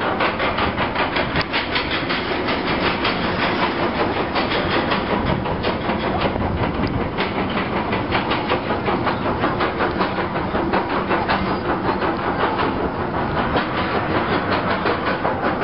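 Roller coaster train climbing the chain lift hill: a fast, even clacking of the lift chain and anti-rollback ratchet.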